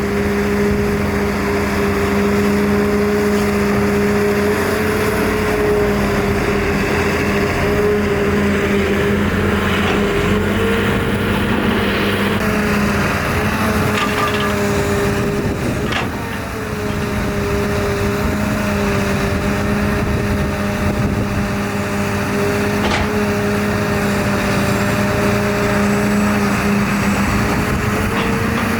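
Excavator's diesel engine running steadily under work, its pitch stepping up and down slightly several times as the hydraulics take load, with a few sharp clanks.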